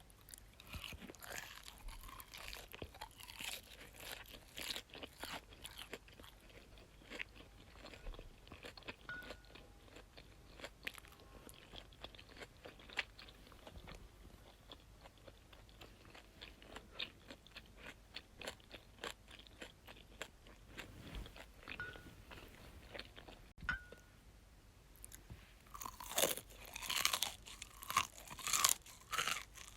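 Close-miked chewing of crunchy food: a steady stream of small crisp crunches, growing louder and denser near the end.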